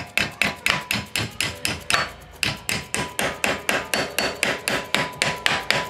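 Mallet rapidly tapping a strip of metal against a steel mandrel, about five even strokes a second, bending the strip round into a ring shape.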